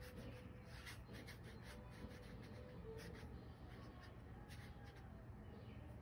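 Faint, irregular scratchy strokes of a watercolour paintbrush dragging across paper.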